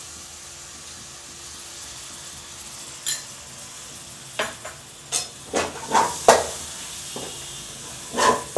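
Onion-tomato masala frying with a steady sizzle in an aluminium kadai, with yogurt just added to it. About three seconds in a perforated steel ladle scrapes the pan once, and from about halfway it stirs with a run of scraping strokes against the pan.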